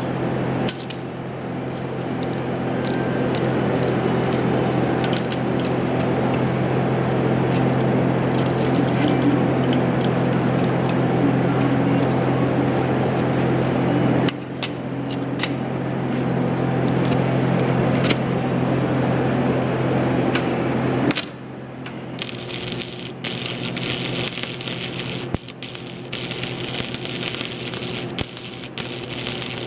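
Electric arc welding: a steady electrical hum with crackle through two long beads, broken briefly about 14 seconds in. The welding stops about 21 seconds in, and a thinner, higher hiss with scattered clicks takes over.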